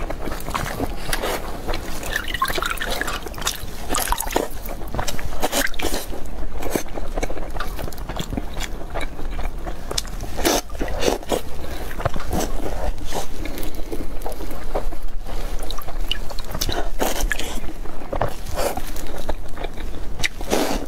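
Close-miked wet chewing and mouth sounds of bread rolls soaked in milk, with milk dripping, as a run of irregular smacks and clicks.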